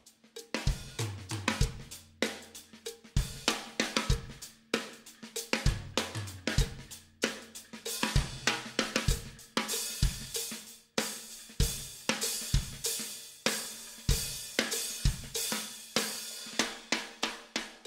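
Outro music: a fast drum-kit beat of kick, snare, hi-hat and cymbal hits over held low bass notes.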